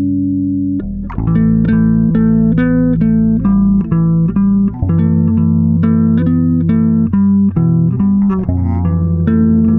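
Instrumental background music. A held low chord breaks off about a second in, then a steady run of short, separate notes follows, about three or four a second.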